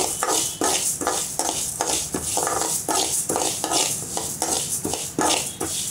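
A steel spoon stirring and scraping flax seeds around a metal pan as they roast. The seeds rattle against the metal in quick repeated strokes, about three a second.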